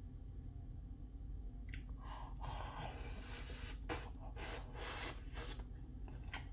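Someone eating toast: a few short crunchy bites and chewing noises, the sharper crunches coming from about four seconds in, over a low steady room hum.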